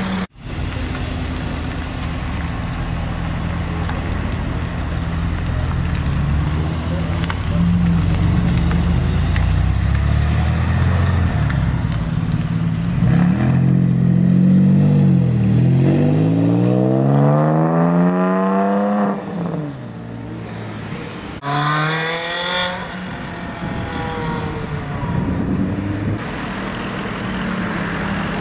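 Sports car engines: a low steady running note, then a Porsche 911 flat-six pulling away with its revs climbing in several rising sweeps. Later comes one short rev that rises and falls, then engine sound again.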